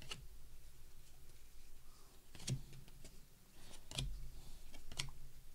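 Stack of baseball cards being flipped through by hand, the card stock sliding and a few sharp taps and snaps as cards come off the pile.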